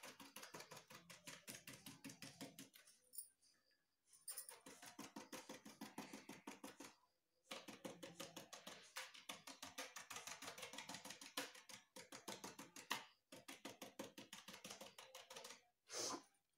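Paintbrush dabbing paint onto a polystyrene foam sheet to stipple it: quick runs of soft taps, several a second, broken by short pauses, with one louder knock near the end.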